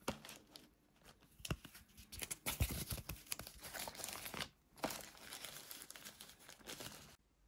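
Frosted plastic packaging sleeve of a phone case crinkling and rustling as it is handled, with brief sharp crackles, a short break about halfway and stopping just before the end.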